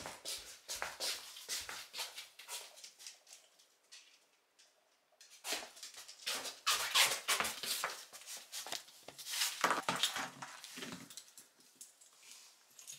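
A mame-shiba's paws and claws tapping and pattering quickly on a wooden floor as it moves about, with a lull of about a second around four seconds in.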